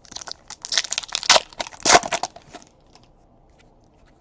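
Wrapper of a trading-card pack crinkling and tearing as it is ripped open, a dense crackle for about two and a half seconds that then stops.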